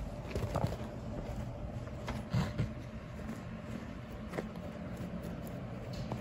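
Guinea pig eating dry hay: scattered crisp crunches and rustles of hay stalks, a few near the start, a cluster about two and a half seconds in, and single ones later, over a steady low hum.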